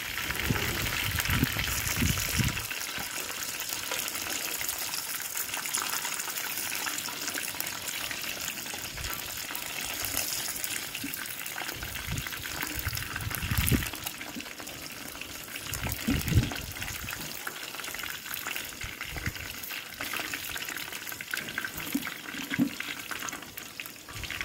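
Chicken pieces deep-frying in hot oil in a wok, a steady sizzling hiss. A few low knocks and scrapes come from the metal spatula in the wok as pieces are lifted out. The chicken is being fried only half-cooked, not crisp.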